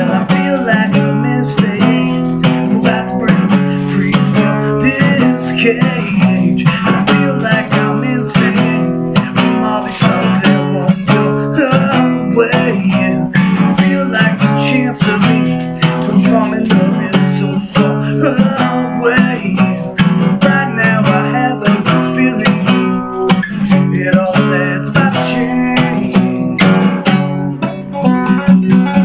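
Acoustic guitar strummed in a steady rhythm, chords ringing without singing: an instrumental passage of an original song.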